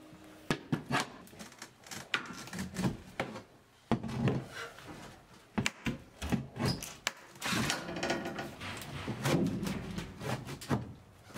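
Irregular knocks, thunks and clatter of interior woodwork being pried loose and broken out by hand, in a cramped steel forecastle.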